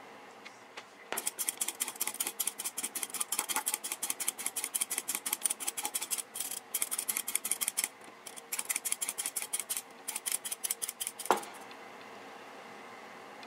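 A kitchen knife whittling thin strips off a carrot in quick scraping strokes, about five a second, with short pauses between runs. Near the end there is a single sharp knock.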